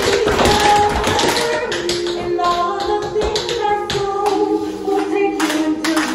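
Tap shoes striking hard floors in quick, irregular runs of sharp clicks over a song with a held melody line.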